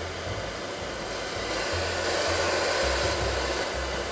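FM static hiss from the clock radio's speaker, swelling louder through the middle as the volume knob is turned up. A low bass line runs beneath.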